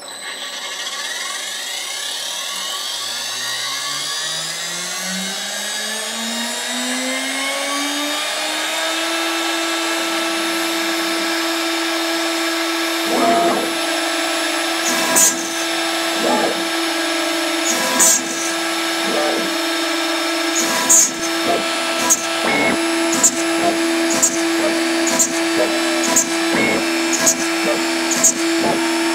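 CNC router spindle spinning up, its whine rising in pitch for about nine seconds and then holding steady. From about thirteen seconds in, the bit plunges again and again to drill a row of holes in the panel, a short sharp cut each time, coming about once a second near the end.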